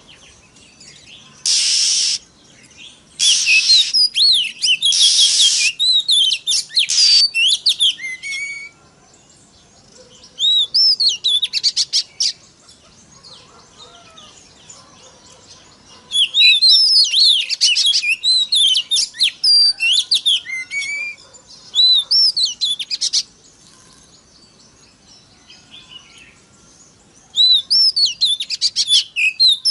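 Oriental magpie-robin (kacer) singing in bursts of rapid, varied whistled phrases with quick pitch glides, broken by pauses of a few seconds. A few harsh, noisy notes come in the first several seconds.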